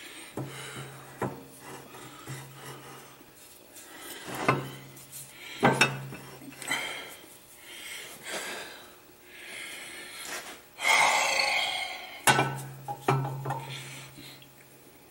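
Metal knocks, clinks and scraping as a cast-iron compressor crankcase and steel spacers are handled and set on a shop press, with a low steady hum that starts and stops several times. A louder rushing, scraping noise comes about eleven seconds in.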